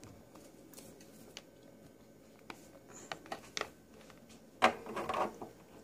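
Small plastic toys being handled and moved by hand: a few light, scattered taps and clicks, then a louder cluster of knocks and rustling a little before the end.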